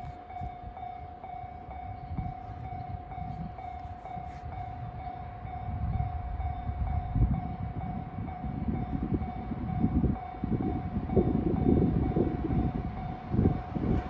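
Japanese level-crossing warning bell ringing in a steady, evenly repeated pattern. Underneath it a low rumble grows louder through the second half as a freight train hauled by an EF510 electric locomotive approaches.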